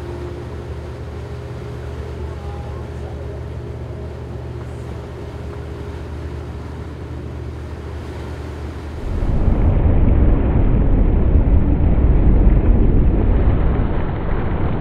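Motor yacht's engines running at cruise: a steady low drone with a few fixed tones. About nine seconds in it gives way abruptly to a louder rushing of wind and water over the microphone.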